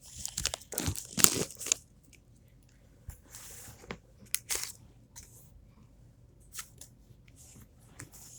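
Foil wrapper of a Pokémon booster pack being torn open and crinkled, a dense burst of crackling in the first two seconds, then scattered crackles and clicks as the wrapper is handled.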